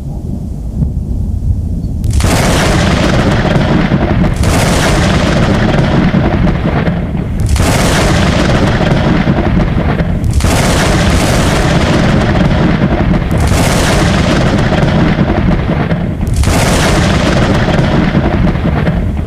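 Thunderstorm sound effect: a continuous heavy rumble with a thunderclap about every three seconds, each crack fading off into the rumble.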